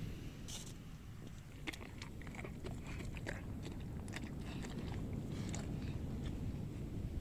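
A dog chewing, with irregular crunches and clicks over a low wind rumble.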